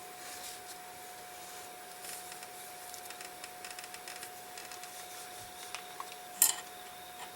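Faint small taps and scrapes of watchmaker's hand tools working on a pocket-watch movement, with one sharp click about six and a half seconds in, over a steady faint hum.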